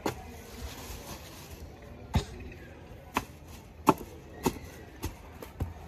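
A short-handled fawda (hoe-like spade) chopping into dry, hard ground, about seven sharp strikes at uneven intervals, the loudest near the middle.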